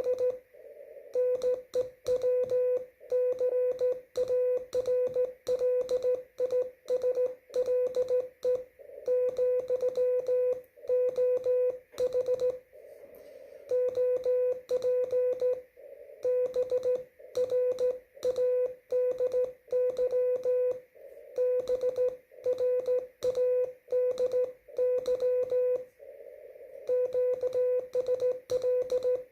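Morse code (CW) from an amateur radio: a single tone of about 500 Hz keyed on and off at slow speed in dots and dashes, grouped into characters and words with pauses between. Soft receiver hiss fills the longer gaps.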